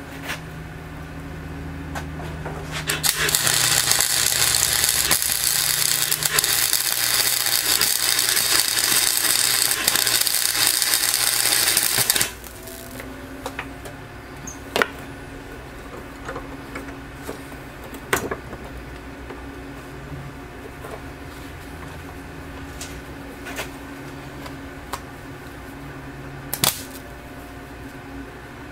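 Wire-feed welder arc crackling steadily for about nine seconds, starting about three seconds in, as a seam on a homemade sheet-metal glasspack muffler is welded. Afterwards a low steady hum with a few sharp clicks.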